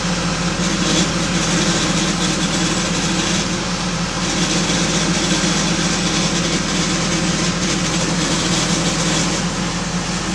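Lincoln SAM 400 engine-driven welder's four-cylinder Perkins diesel running steadily.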